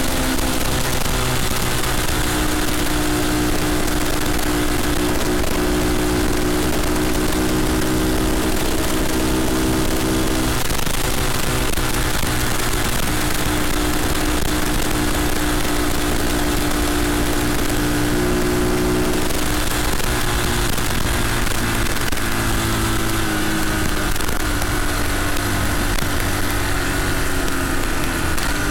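Redcat CT70-clone minibike's small single-cylinder four-stroke engine running under way, with wind noise. The engine's pitch steps a couple of times partway through and falls steadily near the end.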